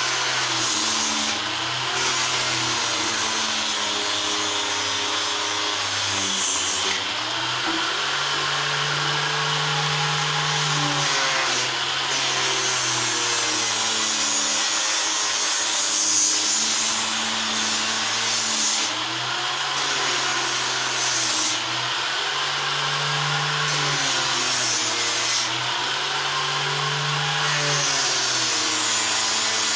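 Electric power tool running against wood, its motor pitch shifting up and down every few seconds as the load changes.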